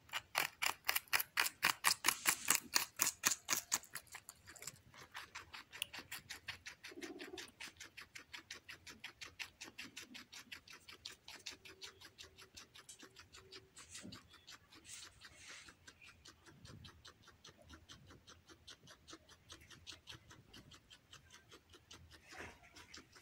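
Guinea pig chewing red bell pepper: a fast, regular crunching of about four to five bites a second, loudest over the first few seconds and fainter after that.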